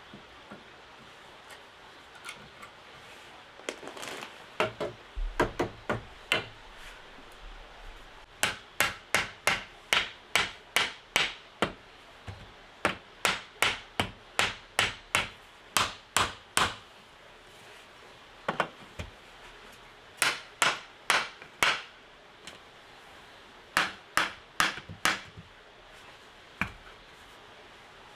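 Repeated sharp blows of a hand tool striking wood, in runs of several strikes at about two to three a second with short pauses between.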